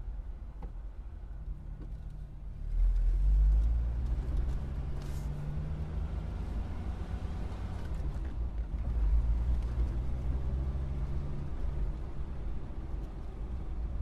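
Car engine as the car pulls away: a low rumble gets suddenly louder about three seconds in and the engine note rises, then runs fairly steadily before easing off near the end.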